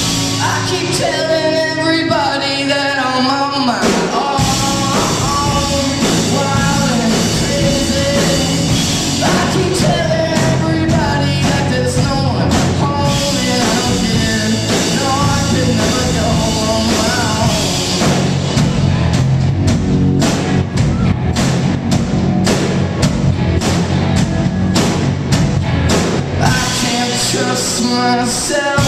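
Live indie rock band playing: two electric guitars and a drum kit, with a sung lead vocal over parts of it.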